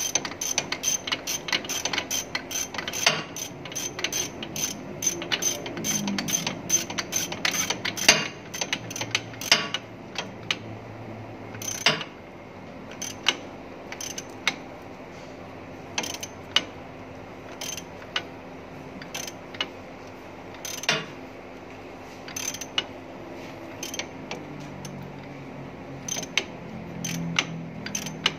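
Hand ratchet wrench clicking as it turns a bolt: rapid runs of clicks for about the first ten seconds, then single clicks roughly a second apart.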